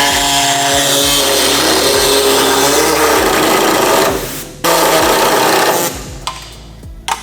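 Electric power tool running under load against metal, a dense harsh noise that breaks off briefly about four seconds in, starts again, and dies away about six seconds in.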